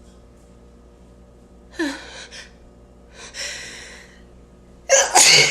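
A person's gasping inhales building toward a sneeze: two catching breaths, then a loud sneeze near the end.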